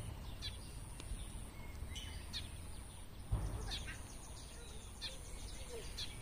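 Small birds chirping in short, scattered calls over a steady low outdoor rumble, with one low thump about three seconds in.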